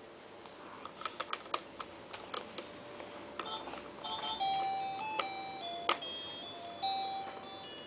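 Plastic clicks and knocks as toys on a baby walker's play tray are handled, then, about halfway in, the tray's electronic music toy starts playing a simple beeping jingle.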